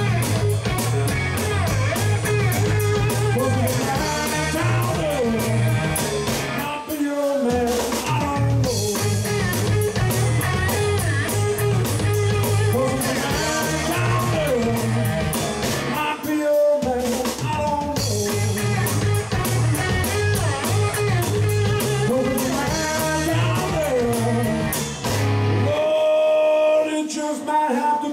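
Live blues-rock band playing: electric guitars, bass, drums and keys, with singing. The bass and drums stop for a moment twice, then drop out near the end, leaving sustained notes ringing over.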